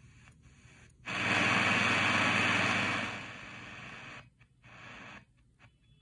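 AM medium-wave static from the speaker of an Eton Field BT Grundig Edition radio as it is tuned across the band. A loud even hiss comes in about a second in and fades after about three seconds, and faint hiss broken by short dropouts comes before and after it.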